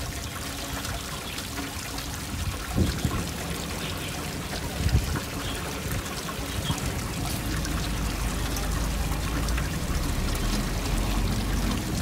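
Steady splashing and trickling water, with two brief thumps about three and five seconds in. A low rumble of wind on the microphone grows stronger in the second half.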